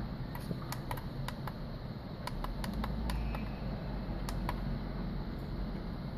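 An irregular run of small, sharp clicks, about fifteen in the first four and a half seconds, as the menu buttons of an industrial LCD monitor are pressed, over a steady low hum.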